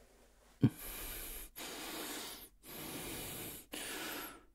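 A man breathing slowly and deeply close to the microphone: four long breaths, in and out twice, after a soft knock about half a second in. He is steadying himself after waking from a bad dream.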